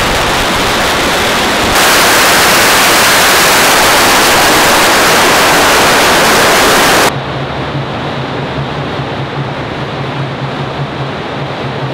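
A firecracker barrage, its cracks merged into a dense, continuous crackling roar. It jumps louder about two seconds in and drops abruptly about seven seconds in to a quieter hiss with a low steady hum.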